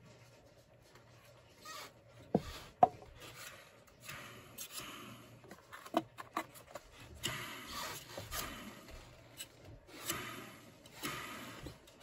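Handling noise from a shop vac's motor and fan housing being turned over in the hands: two sharp knocks about two and a half seconds in, then repeated bursts of rubbing and scraping.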